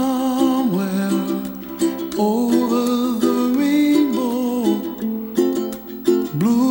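Background music: ukulele with a man's voice carrying a wordless, gliding melody over it.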